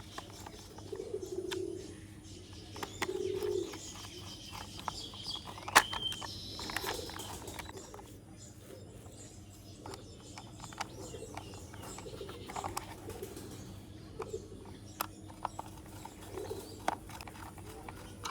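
Small clicks and taps of a screwdriver working screws into a plastic toy vehicle's base. In the background a bird coos twice in the first few seconds.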